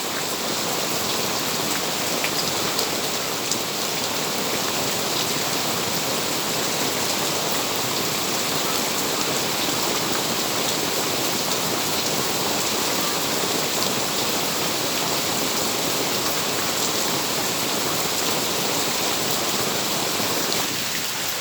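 Steady rain falling, a dense even hiss with the odd sharper drop tick.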